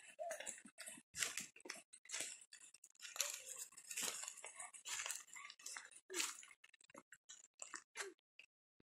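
Footsteps crunching and rustling irregularly through wet leaf litter on a forest floor, cutting off near the end.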